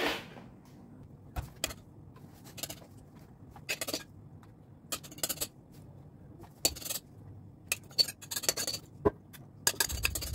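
A metal spoon clinking and scraping against a glass mixing bowl in short, irregular clicks as cake batter is scooped out and spooned into paper cupcake liners.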